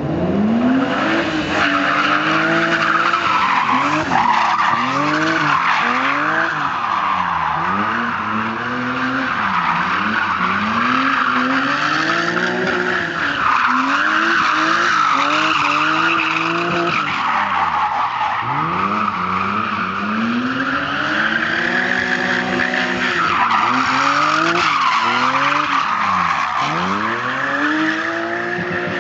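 BMW 3 Series Compact drift car sliding through a run: the engine revs up and falls back again and again, every second or few, while the rear tyres squeal and skid without a break.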